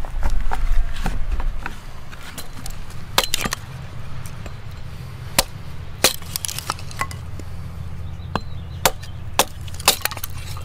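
Wood being struck or cracked: a dozen or more sharp knocks and snaps at uneven intervals, over a steady low rumble.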